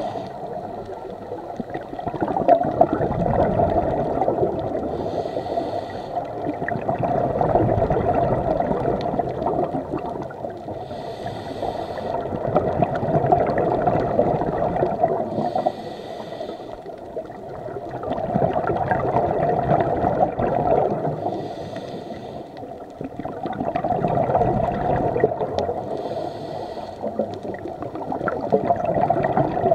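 Scuba breathing heard underwater: a short hiss of the regulator on each inhale, about every five seconds, followed each time by a few seconds of gurgling exhaust bubbles.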